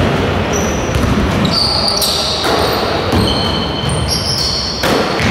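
Basketball game play on a hardwood gym court: a ball being dribbled and sneakers squeaking in short high-pitched chirps, with a few sharp knocks.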